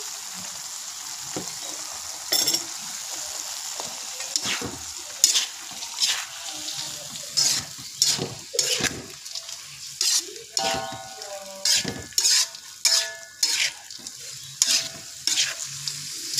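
Bean sprouts and tofu sizzling in a hot wok with a steady hiss, while a metal spatula scrapes and knocks against the pan as they are stir-fried. The strokes start a couple of seconds in and come more often from about halfway, one or two a second.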